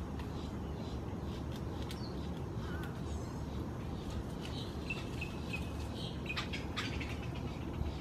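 Birds calling and chirping in short, scattered notes over a steady low rumble.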